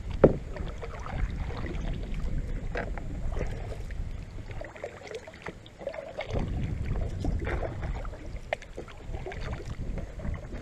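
Water splashing and sloshing around a plastic kayak while a hooked bass is played alongside and brought aboard, with scattered knocks and clicks on the hull and a sharp knock about a quarter second in. Wind rumbles on the microphone throughout.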